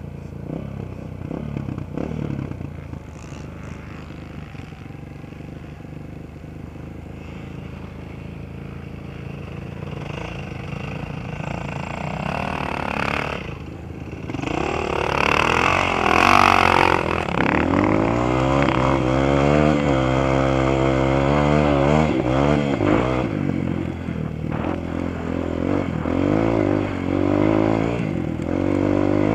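Dirt bike engine running and revving, faint at first and much louder from about halfway, its pitch rising and falling again and again with the throttle. A steady low hum runs underneath.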